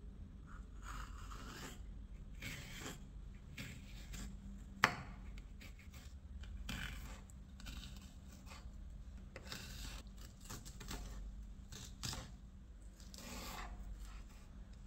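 Kitchen knife dicing bell peppers on a wooden cutting board: irregular crisp cuts through the pepper flesh, with one sharper knock of the blade on the board about five seconds in.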